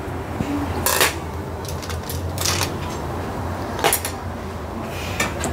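Dishes and utensils clinking and knocking a few times while food is handled at the counter, over a steady low hum.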